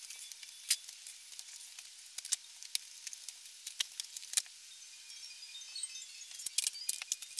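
Scattered light crackles and clicks of a cardboard sheet and duct tape being handled, with a denser burst of crackling near the end as tape is worked off the roll.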